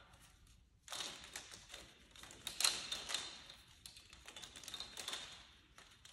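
Steel bandsaw blade, 34 mm wide, clicking and rattling as it is twisted and flexed by hand, with a light metallic ring. The clatter starts about a second in, and the loudest clack comes about two and a half seconds in.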